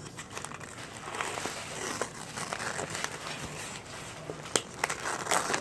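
Bag of baked laundry starch chunks crinkling and rustling as it is handled, with a few sharp clicks near the end.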